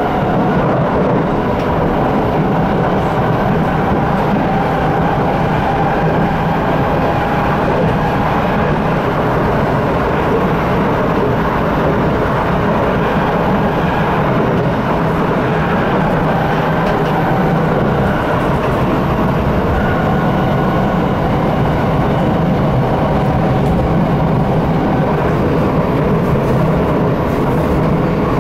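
Cabin noise of an SMRT C751B metro train running between stations: a steady rumble of wheels on rail with a faint whine over it.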